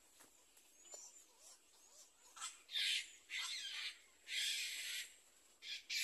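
Black-crowned night heron nestlings giving harsh, hissing begging calls, each under a second long. They start faint about two seconds in and grow louder and more frequent.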